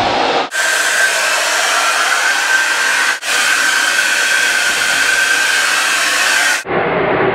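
Hand-held hair dryer blowing steadily: a loud rush of air with a whine on top. It drops out briefly three times, and the whine is higher in the middle stretch and lower near the end.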